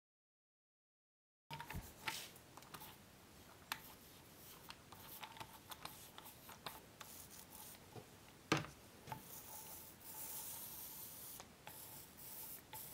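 Primer paint being spread over MDF panels: faint, scratchy rubbing strokes with scattered light clicks, beginning about a second and a half in, and one sharper knock past the middle.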